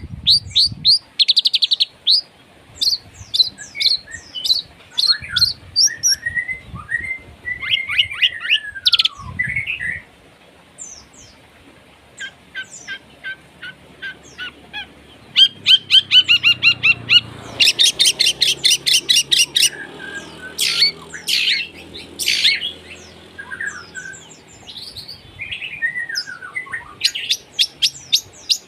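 Long-tailed shrike (cendet) singing a loud, varied song of rapid trills, harsh chattering and short whistled notes, full of phrases learned from other birds. A falling whistle comes about nine seconds in, and the song eases for a couple of seconds before a fast, loud chattering series.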